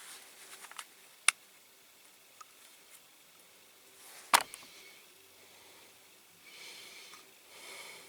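Small clicks from handling a plastic-and-metal model, with one sharp click about halfway, then two short hissy puffs near the end as a glue bottle is squeezed.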